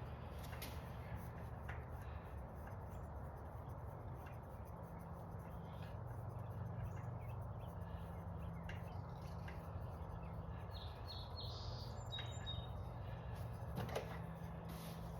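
Quiet outdoor background: a steady low hum with a few faint clicks, and a bird chirping several times about eleven to twelve seconds in.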